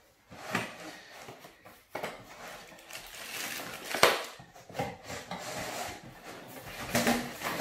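A cardboard packaging tube being opened and its contents slid out: rustling and scraping of cardboard and paper, with a sharp knock about four seconds in and a few more knocks near the end.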